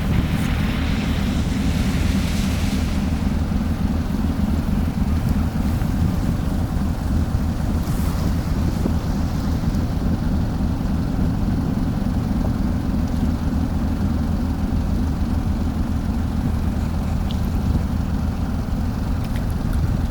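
Ferry engines running with a steady low drone, with wind buffeting the microphone for the first few seconds.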